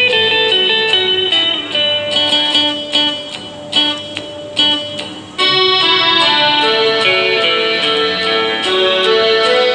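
Background music: a plucked guitar melody that grows fuller and steadier about halfway through.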